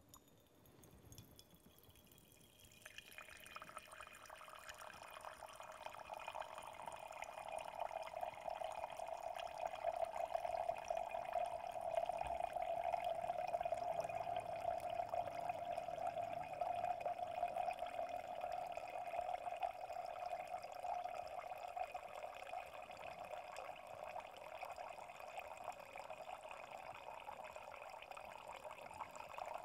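Acidified leach draining from a glass separatory funnel's stopcock in a thin stream into a glass beaker: a steady trickle of liquid that starts about two or three seconds in, grows louder over the next several seconds and then slowly eases. This is the lower, barren leach layer being run off from beneath the solvent layer.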